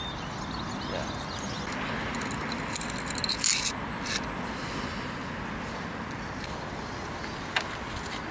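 A small bunch of metal keys jangling as it is handled, a quick cluster of clinks about three seconds in and a single clink near the end, over a steady background hiss.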